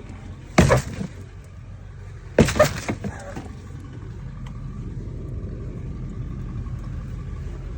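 The door of a Ford F-250 pickup with damaged hinges slammed shut twice, about two seconds apart, each a sharp bang followed by a brief rattle. A low steady rumble runs underneath.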